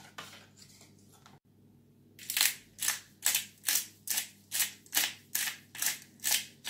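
Faint kitchen clatter, then from about two seconds in a pepper mill grinding black pepper: an even run of short rasping strokes, about two or three a second.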